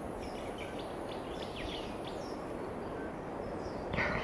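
Steady outdoor background hiss with a scatter of short, high chirps throughout. A brief, louder rush of noise comes near the end.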